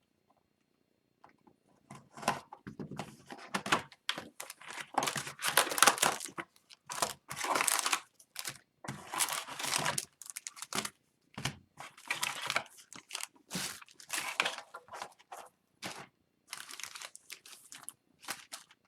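Hockey card pack wrappers being torn open and crinkled by hand, in a string of irregular rustling tears that starts about two seconds in.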